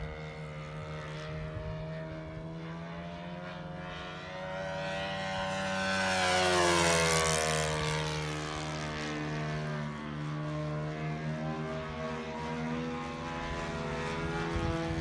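Great Planes Little Toni RC model plane's .90 Magnum four-stroke glow engine at full throttle in flight. The engine note swells to its loudest about six to seven seconds in as the plane passes by, its pitch dropping as it goes past, then settles to a steadier, quieter drone.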